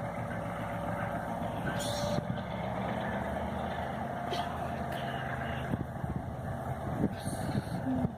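EMD G12 diesel-electric locomotive running steadily, its engine droning low through the trees, with a few scattered short knocks.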